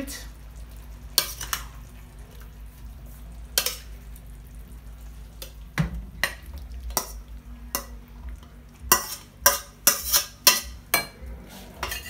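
A metal spoon scraping and knocking against a steel wok as stew is dished into a bowl. The wok is tipped and scraped out, with a quick run of clinks about three-quarters of the way through, over a steady low hum.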